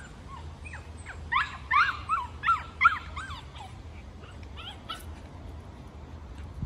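A dog barking in a quick run of about seven short, high yips, bunched together about a second into the sound and over within about two seconds.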